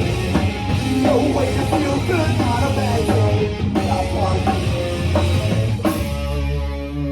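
Live rock band playing loud with drum kit and distorted electric guitars, no vocals. About six seconds in the drums stop on a final crash and a held guitar chord is left ringing.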